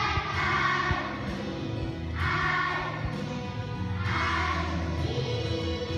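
A class of young children singing together as a choir, in phrases that come about every two seconds, over a steady instrumental accompaniment of held low notes.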